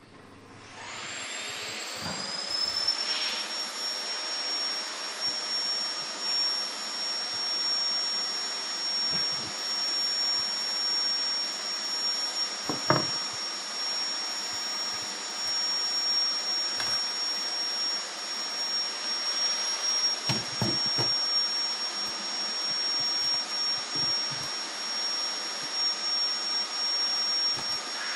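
A high-speed electric fan motor spins up about half a second in with a rising whine, then runs steadily with a high whine over a rushing of air. A few light knocks sound over it, the loudest about 13 seconds in.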